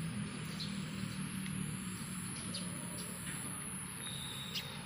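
Outdoor ambience: a steady low hum of distant traffic with a few short bird chirps scattered through it, and one longer bird note near the end.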